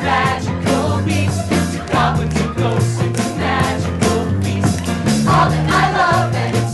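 Upbeat rock-style song from a stage musical: cast voices singing over a band with bass and a steady drum beat.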